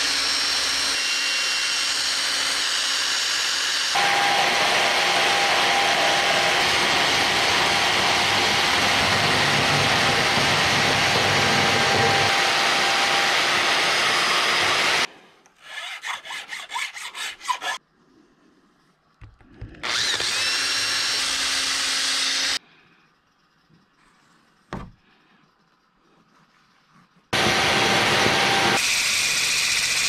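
Cordless drill running steadily as it bores holes through a plastic mounting plate, for about fifteen seconds. This is followed by a few seconds of irregular hand scraping, then two shorter runs of the drill.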